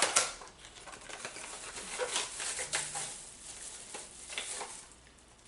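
Product packaging being handled: a sharp click or knock at the start, then irregular rustling and crinkling with small clicks that fades away near the end.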